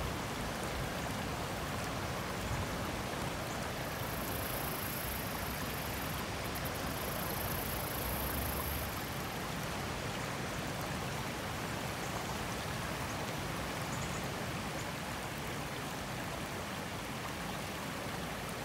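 Steady rushing of a creek flowing over rocks and flood debris, with a faint high-pitched hiss for a few seconds near the middle.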